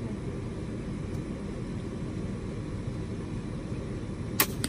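A crossbow fired once about four seconds in: a short, sharp snap as the string is released, over a steady low rumble.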